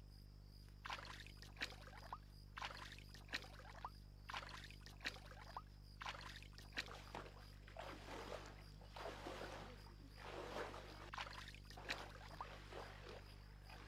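Faint, repeated splashing and sloshing of pond water as people wade and grope for fish by hand, about one or two splashes a second, growing busier for a couple of seconds past the middle, over a low steady hum.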